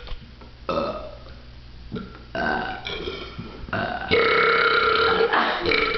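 People burping on purpose in a burping contest: a few short burps, then a long, loud burp starting about four seconds in.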